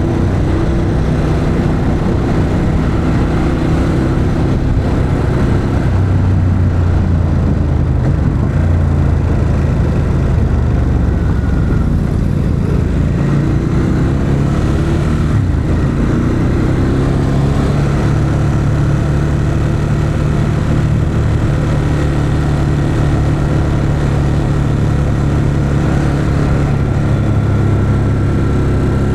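2021 Ducati Monster 821's Testastretta L-twin engine running through its stock exhaust while riding. The engine note holds steady, wavers and swings in pitch around halfway through, then settles into a steady note again.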